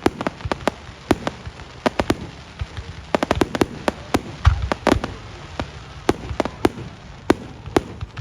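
Fireworks going off: an irregular string of sharp bangs, densest in the middle, with one deep boom about four and a half seconds in.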